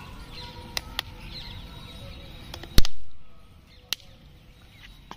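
Rubber grip being worked onto a cricket bat handle by hand, with a few faint clicks. About three seconds in there is one sharp, loud crack that dies away over about a second.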